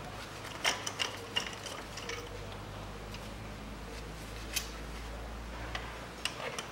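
Irregular metallic clicks and clinks from a socket wrench with a long extension being worked in the spark-plug wells to take out the old spark plugs. A steady low hum runs underneath.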